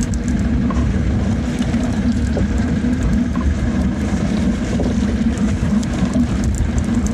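Small fishing boat's engine running steadily at low revs, keeping the boat in position.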